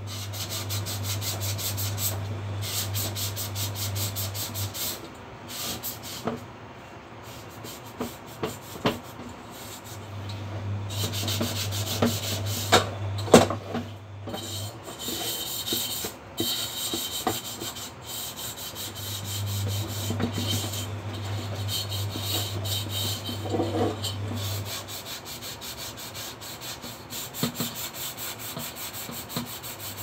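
A scouring pad scrubbing the inside of a stainless steel saucepan: a steady scraping rub that comes in stretches of a few seconds, with a few sharp knocks of the pot near the middle.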